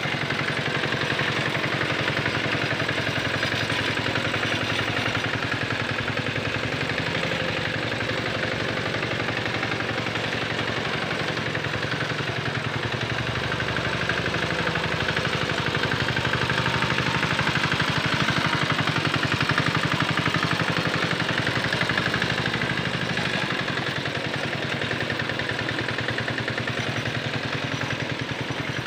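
Small engine of a Quick Capung Metal walk-behind tractor running steadily under load as it pulls a harrow through paddy mud, with a fast, even chugging.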